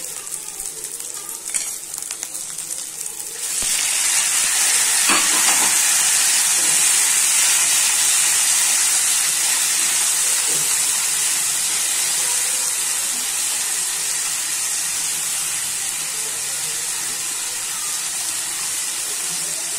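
Onions sizzling in hot oil in a non-stick frying pan, then chopped tomatoes going in about three and a half seconds in, setting off a much louder sizzle that carries on steadily, easing a little, with the odd knock of the wooden spatula as they are stirred.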